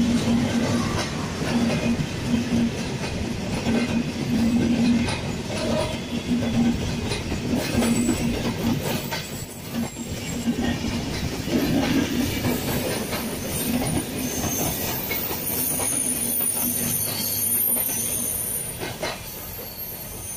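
Bangladesh Railway intercity passenger coaches rolling past at speed, their wheels clattering over the rail joints, with a thin high squeal from the wheels in the second half. The noise eases slightly as the last coach draws away near the end.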